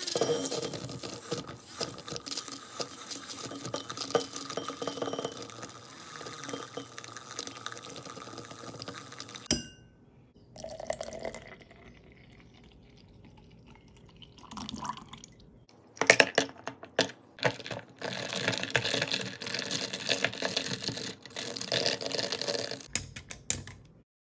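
Handheld battery milk frother whirring and rattling in a drinking glass as it whisks green tea powder into cream; it stops sharply about ten seconds in. After a quieter stretch of milk being poured and a few sharp clinks against the glass, the frother runs again in the iced latte until just before the end.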